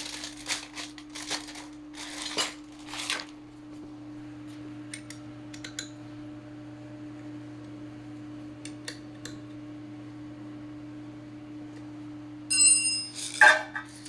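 Hands and shoes scuffing and scraping on a concrete floor during reassembly of a scooter's rear wheel, over a steady low hum. Near the end a small metal part clinks with a brief high ringing note, followed by another scrape.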